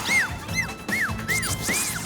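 Cartoon soundtrack: background music with a quick series of short whistle-like effects, each rising and falling in pitch, about five in two seconds.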